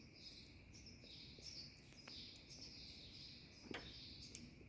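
Faint background birdsong: small birds chirping again and again. Two light clicks come near the end.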